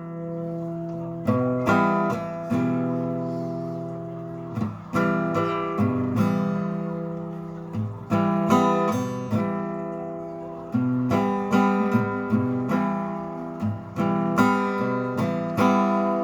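Acoustic guitar strumming chords, an instrumental intro with chords struck again every second or so and left ringing.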